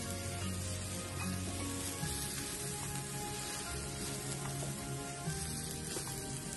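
Shrimps sizzling on a hot ridged grill pan, with a few light clicks as tongs turn them.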